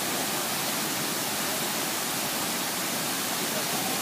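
Large waterfall rushing in a steady, unbroken wash of noise. A faint thin whine joins near the end.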